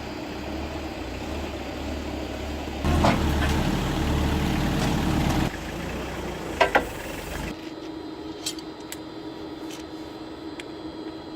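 Forklift engine running, rising under hydraulic load for a couple of seconds as the skid-steer hitch picks up a snow blade, then settling back to idle. A sharp metallic clunk comes about midway, as the hitch engages.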